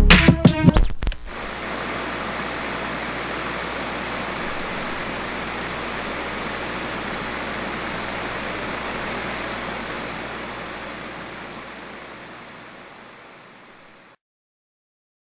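Hip-hop music ends about a second in. A steady, even rushing noise of outdoor ambience follows, then fades out slowly over the last few seconds and stops dead.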